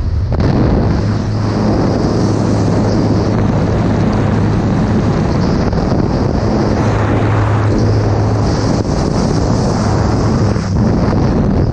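Loud wind rushing over the microphone during a skydive, with a steady low hum beneath it.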